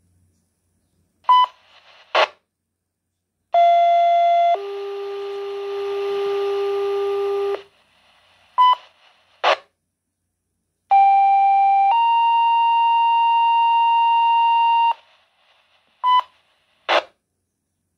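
Fire dispatch two-tone sequential paging tones coming from a Baofeng BF-F8HP Pro handheld radio's speaker. There are two pairs of steady tones, each a short tone of about a second followed by a longer tone of about three seconds. The first pair drops lower and the second steps higher. Short beeps and brief bursts of squelch noise come between the pairs. The tones alert the fire stations to a call before the spoken dispatch.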